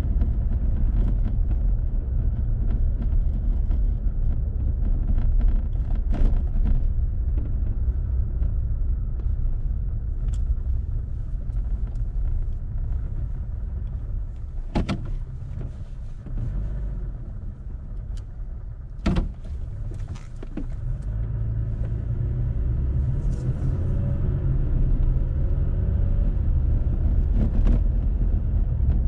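A car driving slowly, heard from inside the car: a steady low road and engine rumble that drops for a few seconds past the middle, with a few sharp clicks, the loudest about 19 seconds in.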